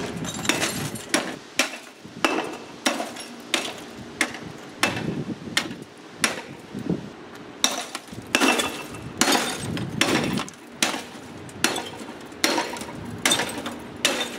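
A baseball bat striking a CRT computer monitor over and over, roughly two blows a second, each hit a sharp crack of the plastic case and cracked glass screen with a short echo after it.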